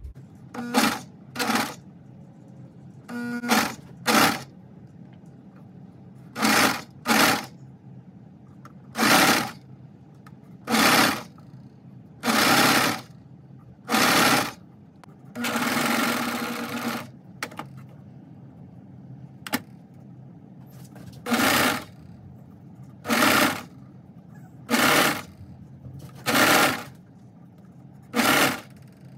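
Brother serger (overlock machine) stitching a long fabric strip for straps in short runs of about half a second each, starting and stopping some fifteen times, with one longer run of about a second and a half midway.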